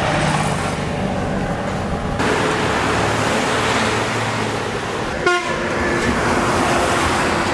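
Roadside traffic: a bus passing close with engine and tyre noise. A vehicle horn toots briefly about five seconds in.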